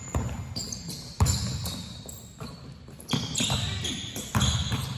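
Basketball bouncing on an indoor gym court: a few hard, irregularly spaced dribbles that ring out in the large hall, with short high squeaks in between.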